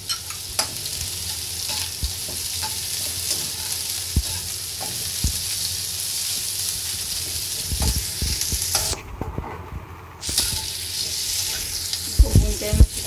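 Sliced onions and green capsicum sizzling in hot oil in a kadhai, stirred with a metal slotted spatula that knocks and scrapes against the pan. The sizzle cuts out for about a second just past the middle, then returns, with a cluster of heavier knocks near the end.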